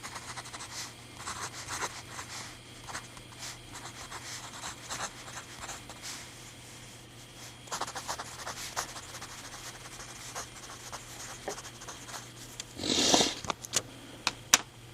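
Mechanical pencils being handled: scattered small clicks, taps and scrapes of plastic and metal pencils over a low steady hum. Near the end comes a short, louder rush of breath.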